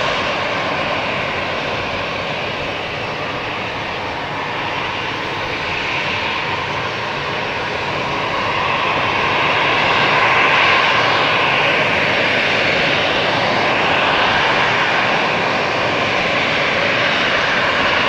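Jet engines of an Airbus A320-214, twin CFM56-5B turbofans, running with a steady whine while the airliner holds lined up on the runway before its takeoff roll. The sound swells slightly about halfway through.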